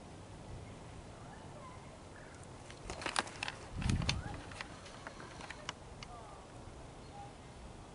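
Quiet woodland with a few faint bird chirps. About three seconds in there is a short run of sharp crackles and clicks, then a dull thump: handling noise as the camera is swung up toward the trees.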